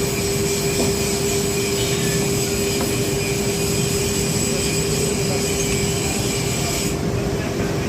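Heavy industrial machinery running steadily, a continuous mechanical din with a constant whine and a higher metallic squeal; the high squeal drops away about seven seconds in.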